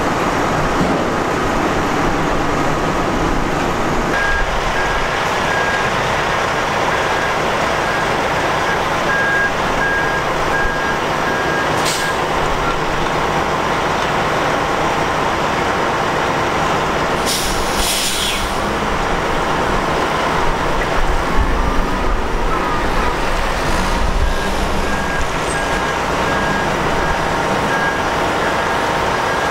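Heavy equipment diesel running steadily under a Cat 395 excavator being moved, with a warning alarm beeping steadily from about four seconds in, stopping about twelve seconds in and starting again near the end. A brief hiss about twelve seconds in and a longer one around seventeen seconds cut through the engine noise.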